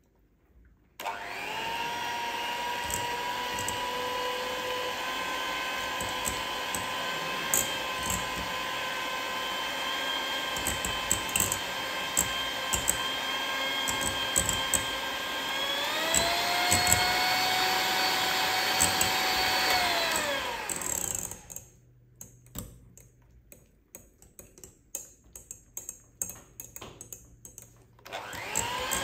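Electric kitchen mixer running steadily, switched to a higher speed partway through, then stopped about 21 seconds in. A few light clicks and taps follow, and the motor starts up again, rising in speed, near the end.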